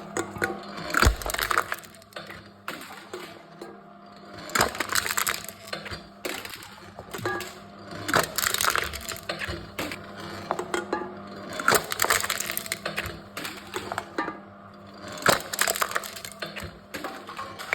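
Aluminium cans being crushed one after another in a wooden can-crushing machine: a crunch of metal and wood about every three and a half seconds, with clattering between, over a faint steady hum.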